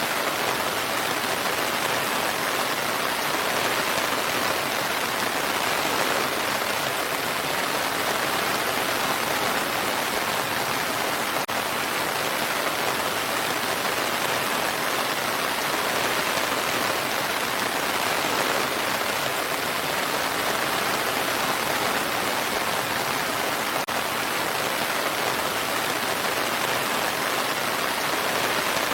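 Steady rain falling: a dense, even hiss that holds the same level throughout.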